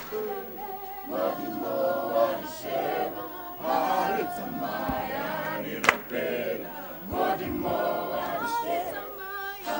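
Church worship team of many voices singing softly together, unaccompanied.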